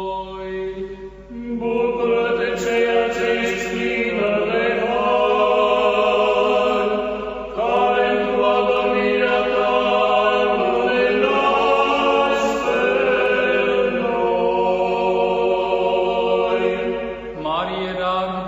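Orthodox liturgical chant sung in long held notes that change every few seconds, over a steady low drone.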